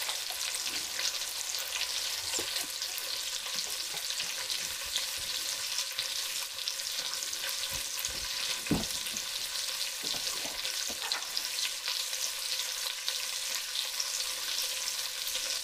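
Sliced onion and carrot sizzling steadily in hot bacon fat and olive oil in a pan as they brown, with a single knock about halfway through.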